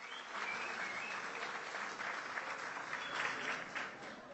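A large audience applauding, fading out near the end.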